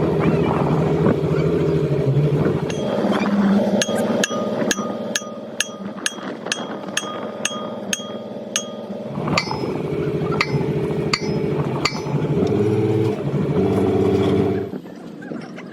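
Machinery running with a steady hum. From about four seconds in, a run of sharp ringing metallic clinks comes at roughly two a second for about eight seconds. The hum cuts off near the end.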